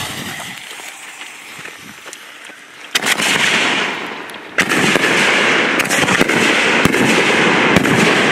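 Ground firework fountains lit one after another: a first one bursts into a loud rushing hiss of spraying sparks about three seconds in, a second joins about a second and a half later, and the steady hiss carries a few sharp cracks near the end.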